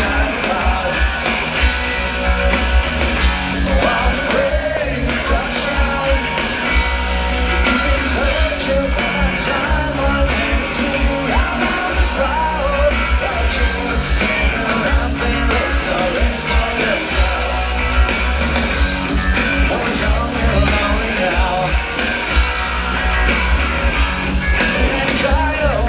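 Live punk rock band playing at full volume: electric guitars, drums with a pounding bass beat, and lead vocals, heard over the stadium PA from within the crowd.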